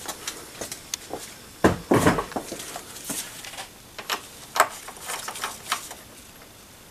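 Ratchet and deep socket clicking and clinking in irregular strokes while unscrewing a coolant temperature sensor, with a couple of louder knocks a little under two seconds in.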